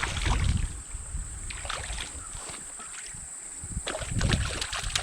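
Wind gusting on the microphone beside a flowing stream, with scattered light splashes of water.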